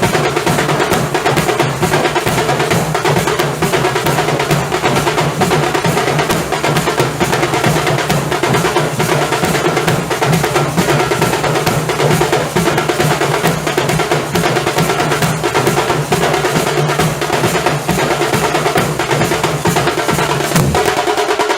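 Nasik dhol ensemble playing: large barrel dhol drums and tasha drums beating a fast, dense, unbroken rhythm. The deep drum strokes drop out near the end.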